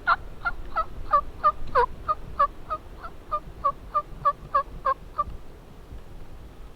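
Turkey yelping: a steady run of about sixteen two-note yelps, about three a second, that stops about five seconds in.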